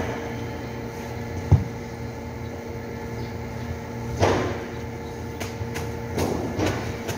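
Steady hum of factory machinery, with a single low thump about a second and a half in, then brief rustling scrapes of corrugated cardboard sheets and trim strips being handled about four seconds in and twice more near the end.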